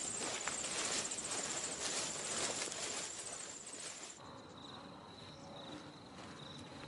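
Insects trilling: a loud, high, pulsing buzz over a rustling hiss that cuts off suddenly about four seconds in, giving way to a quieter background with a single high chirp repeating about every half second to second.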